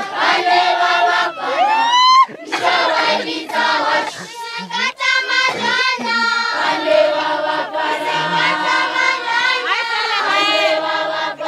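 Group of children singing together as a choir, many voices at once, with one voice sliding upward in a rising whoop about two seconds in.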